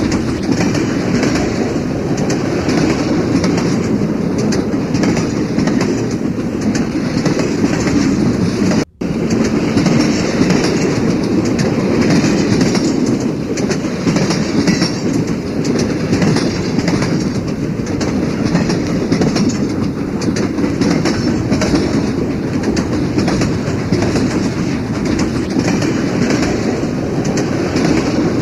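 Railway carriage wheels running over the track: a continuous rumble with rhythmic clickety-clack knocks at the rail joints. There is a momentary break in the sound about nine seconds in.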